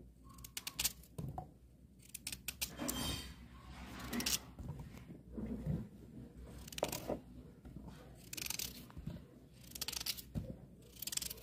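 Kitchen knife cutting through raw peeled potatoes held in the hand, a short crisp snick at each cut, about one a second and irregular, with pieces dropping into a plastic bowl.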